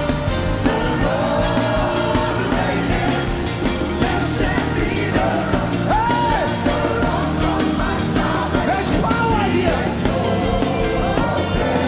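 Live gospel worship music: sung vocal lines over a band with sustained keyboard chords and a steady bass.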